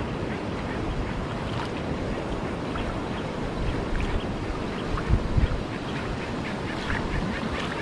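Wind buffeting the microphone over flowing river water, a steady rumbling noise with a few stronger gusts about five seconds in. Faint short ticks are scattered throughout.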